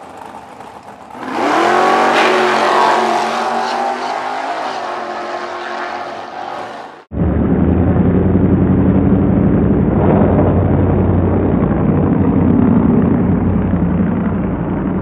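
Drag-racing car's engine revving hard, rising in pitch about a second in and running loud. About seven seconds in the sound changes abruptly to a loud, steady full-throttle engine run as the car accelerates away down the strip.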